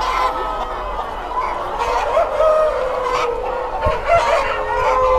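A large flock of breeder chickens, hens and roosters together, clucking and calling over one another, with several longer held calls among the chatter.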